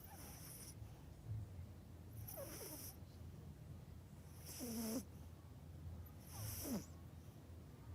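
Yorkshire terrier snoring in deep sleep: four snores about two seconds apart, each a breathy hiss with a squeaky whistle that falls in pitch.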